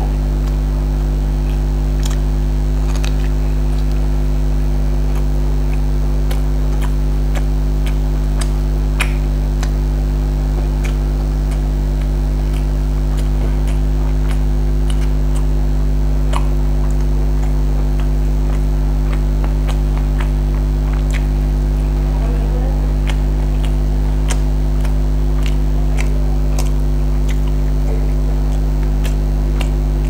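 Steady electrical mains hum, the loudest sound, with scattered small clicks and smacks of fried rice being mixed by hand on a plate and chewed.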